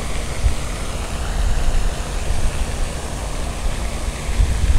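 Wind buffeting the microphone in an uneven low rumble, over a steady hiss.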